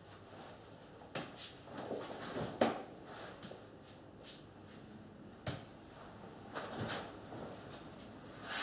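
Nunchaku being swung and caught through a combination: a run of irregular swishes through the air and sharp knocks, the loudest about two and a half seconds in and again about five and a half seconds in.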